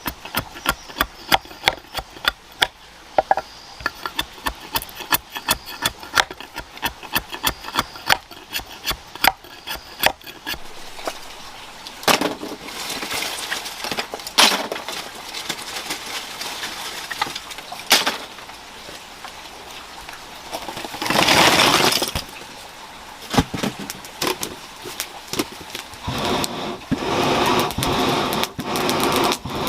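Repeated sharp chopping strikes on wood, about three a second for the first ten seconds. Then irregular scraping and rubbing, a louder rasping patch about 21 seconds in, and a rhythmic rasping near the end.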